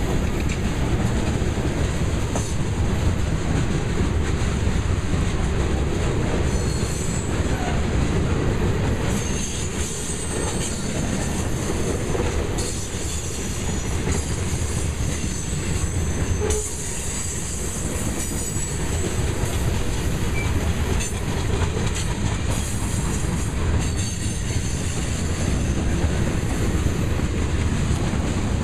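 Freight cars of a grain train rolling past at close range: a steady heavy rumble of steel wheels on rail, with clacking over rail joints and a high wheel squeal that comes and goes.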